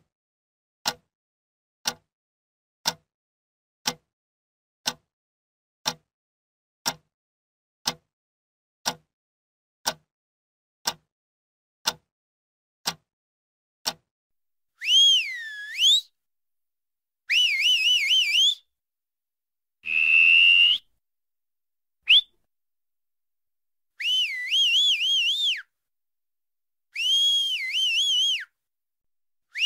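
A clock ticking, one tick about every second, some fourteen ticks in all. It stops, and a person whistles a string of short phrases that swoop down and back up in pitch.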